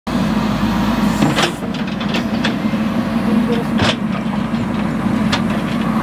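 JCB backhoe loader's diesel engine running steadily under load while the rear backhoe bucket digs into a hillside of earth and rock. A few short knocks and scrapes, four in all, come through over the engine at uneven intervals.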